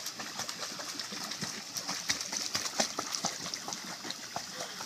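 Pool water splashing and lapping in small irregular splashes around an Italian greyhound paddling in a life vest.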